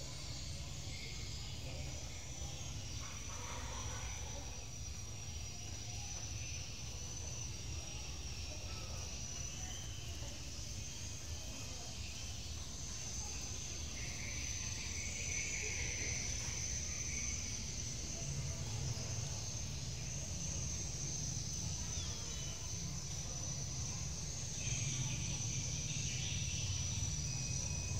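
Outdoor ambience: a steady high-pitched insect drone over a low rumble, with a few brief fainter sounds about halfway and near the end.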